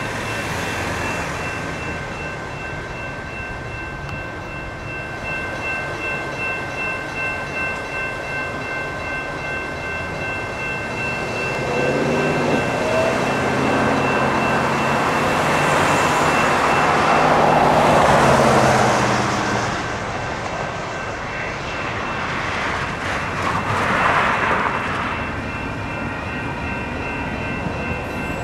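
General Signals Type 2 electronic crossing bells ringing steadily at a railroad crossing. Passing road traffic swells over them, loudest about two-thirds of the way in, with a shorter swell near the end.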